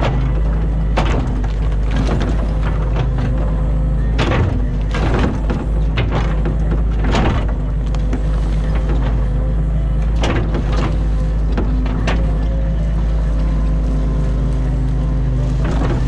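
New Holland Kobelco E50.2 mini excavator's diesel engine running steadily under working load as the bucket digs silt and debris out of a ditch, with several sharp clanks and knocks from the bucket and boom spread through.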